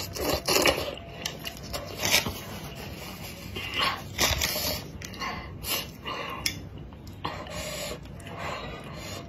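Close-miked eating sounds: a spicy wonton slurped into the mouth, then chewed with wet, irregular mouth noises.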